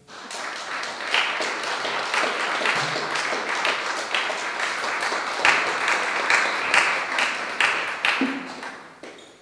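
Audience applauding, many hands clapping steadily, then dying away near the end.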